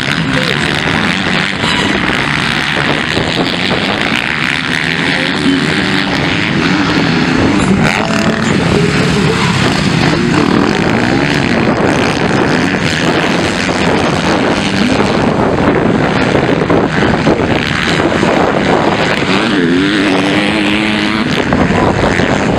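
Several MX2 motocross bikes racing, their engines revving up and down again and again as the riders accelerate, shift and back off around the track.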